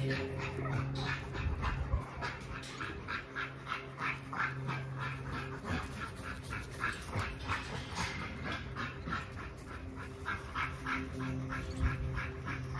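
Large XL American bully dog panting hard and rhythmically, about three to four breaths a second, while being exercised with a rope toy. Under it runs a steady low hum that drops away in the middle and comes back near the end.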